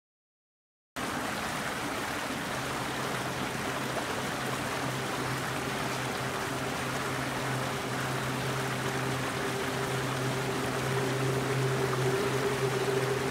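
Steady rushing noise like running water, starting suddenly out of silence about a second in, with a low steady hum joining shortly after.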